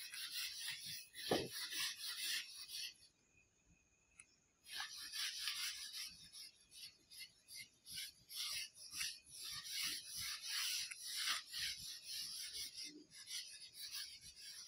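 Whiteboard eraser scrubbed back and forth across a whiteboard: a faint hissing rub in quick strokes. It pauses for a bit under two seconds about three seconds in, then carries on.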